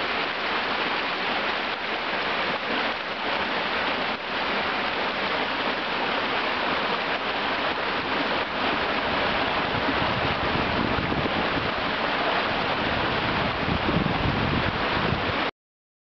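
Muddy floodwater rushing across a paved street: a steady hiss of running water. A deeper rumble joins about ten seconds in, and the sound cuts off suddenly just before the end.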